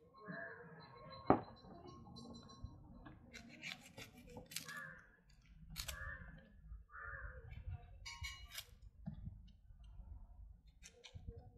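A knife peeling the dry, papery skin off red onions: irregular crackling and rustling as the skin is scraped and torn away. A single sharp knock about a second in is the loudest sound.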